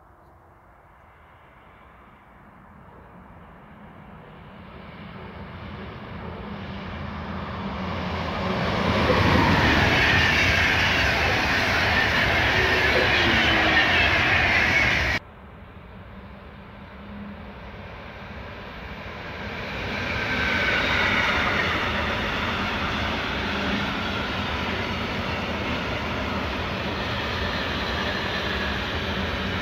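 A EuroCity passenger train of Intercity coaches approaches and passes at speed. Its rushing, rolling noise swells over about nine seconds to a loud peak, then cuts off abruptly about halfway through. Next, a freight train of container and truck-trailer wagons swells up and rolls steadily past.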